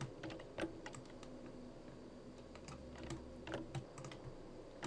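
Computer keyboard and mouse clicking: scattered, irregular clicks, several a second at times and sparse at others.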